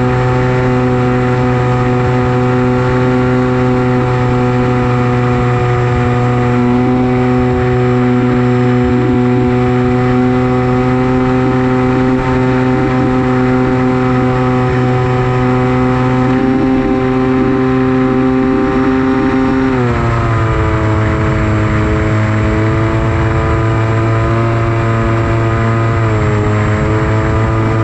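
Versa Wing flying wing's motor and propeller running steadily in flight with a constant whine. It drops in pitch about two-thirds of the way through, and again slightly near the end, as the throttle is eased back.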